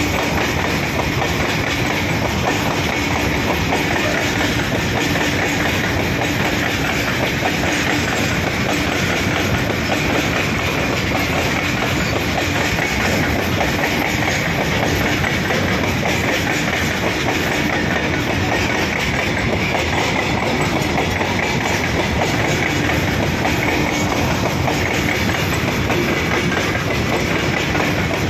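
Goods train of open-top freight wagons rolling past close by: the steady rumble and clatter of the wagon wheels on the track.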